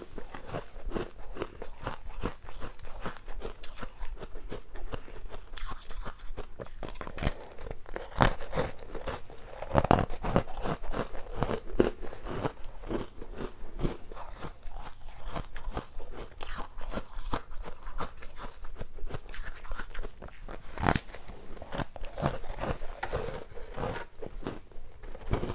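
Close-miked biting and chewing of frozen basil-seed ice: a dense run of sharp cracks and crunches as the ice is bitten off and chewed.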